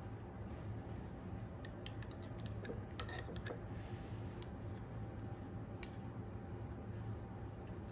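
Small metal spoons clicking and scraping lightly while jam is spooned into thumbprint cookies: a little cluster of clicks about three seconds in and one more near six seconds, over a steady low hum.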